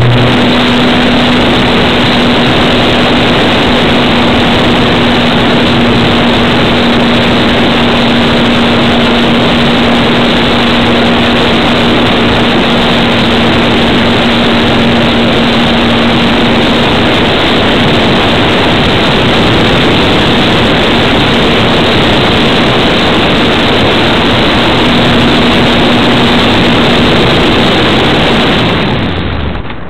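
Parkzone Radian motor glider's electric motor and propeller running under power, picked up by the onboard camera: a loud steady rush with a steady hum, as the plane climbs. The motor winds down near the end, its pitch sinking as it cuts.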